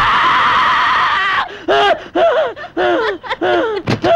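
A man's long, wavering scream for about a second and a half, followed by a woman's repeated high-pitched laughter, with a sharp smack near the end.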